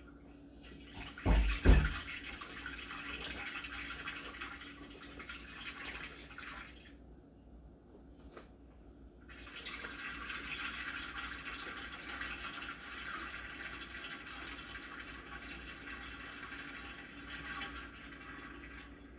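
Kitchen tap water running into the sink during hand dishwashing, shut off for a couple of seconds partway through and then turned on again. Two loud clunks near the start, like dishes knocking in the sink.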